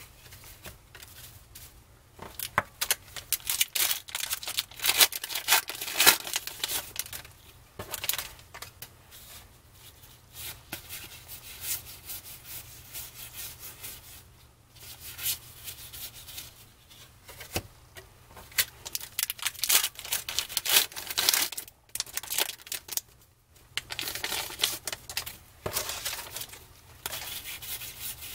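A pack of 1992 Donruss Triple Play baseball cards is torn open, its plastic wrapper crinkling in dense bursts in the first several seconds. Then the stiff cardboard cards are slid and flipped through by hand, rubbing against each other in short rustles.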